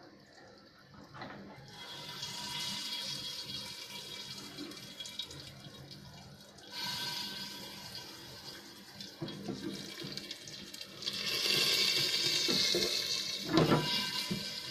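Hot oil sizzling in a lidded pan of popcorn kernels, a steady hiss that grows louder in steps. There is a sharp knock near the end.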